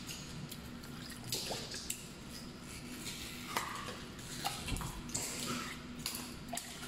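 Herring being butterfly-filleted with a thin knife on a cutting board: wet slicing and squelching of the fish, with scattered light clicks and taps as the blade and fish meet the board. A steady low hum runs underneath.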